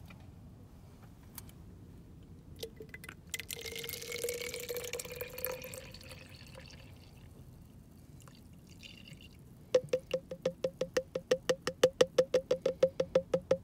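Breast milk poured from a Freemie collection cup into a plastic baby bottle: a thin stream whose pitch rises as the bottle fills. About ten seconds in come rapid drips, several a second, the loudest part, as the last milk drains from the cup.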